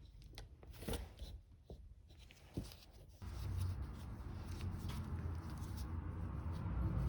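Light clicks and knocks of a tool being handled, then about three seconds in a power tool's motor switches on and runs with a steady low hum.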